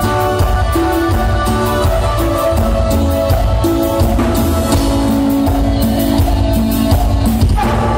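Live band playing loud music with a steady drum beat under sustained instrument notes.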